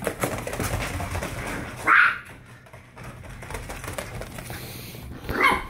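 Several dogs' claws clattering and scrabbling on clear plastic carpet-runner mats as they run, with two short, louder sounds about two seconds in and near the end.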